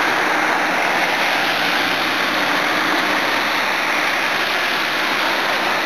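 Steady hiss of car tyres on wet tarmac from driving on a rain-soaked road.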